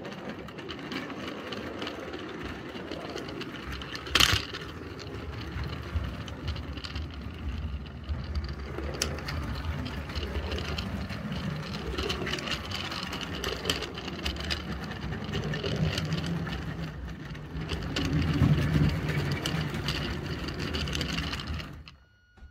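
Roundhouse 0-6-0 electric 16 mm scale locomotive running with its train of tipper wagons, heard from a wagon on the train: a steady motor and drive whine with rolling noise and scattered clicks, one sharp click about four seconds in. The whine is the noise the owner puts down to the loco being wired with a radio-control car speed controller. The running noise stops suddenly near the end.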